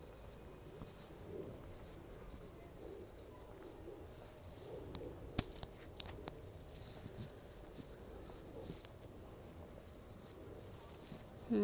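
Insects chirring steadily in the background of an open field, with a few sharp clicks about five to six seconds in.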